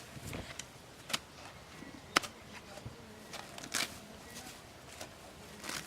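A few separate sharp clicks or knocks over a faint background hiss, the loudest about two seconds in and a longer, noisier one near four seconds.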